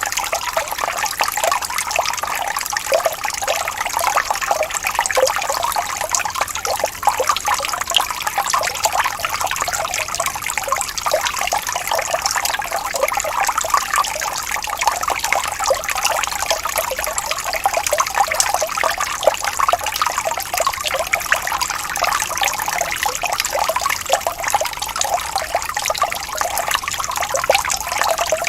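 Running water trickling and splashing steadily, a dense bubbling patter with little deep rumble.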